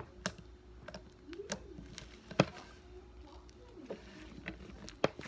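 Homemade slime being squeezed and poked by hand, making irregular sharp clicks and pops, with one loud pop about two and a half seconds in and another near the end. Faint voices talk in the background.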